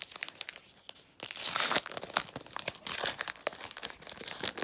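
Foil wrapper of a Match Attax trading-card pack being torn open and crinkled by hand: a run of sharp crackles, with a longer, louder tearing stretch a little after a second in.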